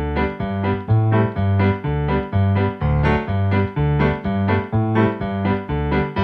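Instrumental music: a keyboard melody over a bass line, its notes changing two or three times a second.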